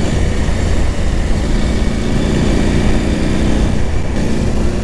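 KTM 890 Adventure R's parallel-twin engine running at a steady cruise under the rider, with a steady low rumble of wind and road.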